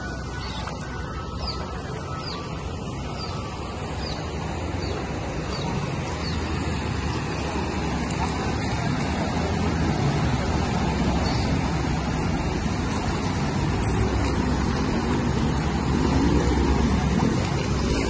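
Vehicles driving along a flooded road, engine noise mixed with the rush of floodwater, as a steady noise that grows louder in the second half.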